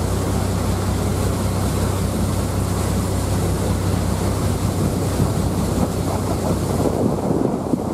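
JR Miyajima ferry's engine giving a steady low hum under the rush of water past the hull and wind buffeting the microphone on deck.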